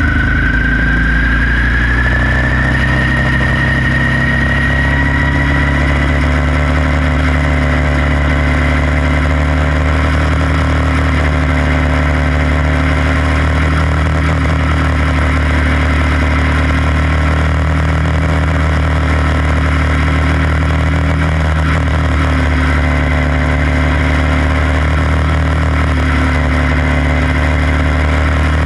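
Onboard sound of a quarter midget race car's engine running steadily at racing speed, with a high whine that rises in pitch over the first few seconds, then holds.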